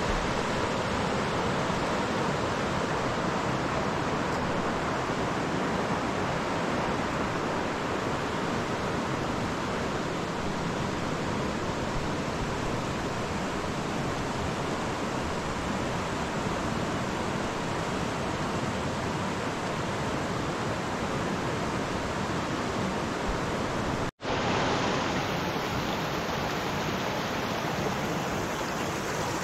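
Steady rushing of a big, fast-flowing river: a dense, even noise with no separate events. It drops out for an instant late on and resumes.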